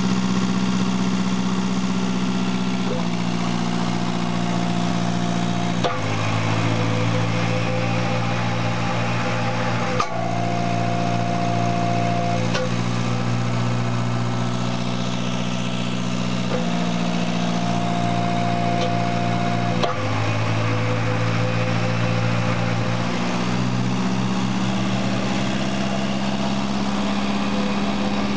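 Hobart VCM-25 two-speed vertical cutter mixer running empty, its motor and knife shaft giving a steady hum. The hum shifts in pitch and tone several times, with a sharp click at three of the changes.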